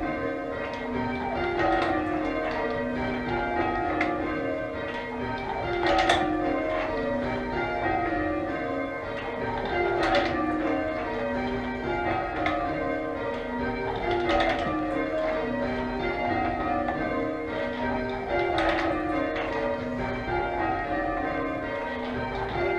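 Church tower bells being rung full circle in change ringing, struck one after another in repeated descending rows. A sharp knock recurs about every four seconds.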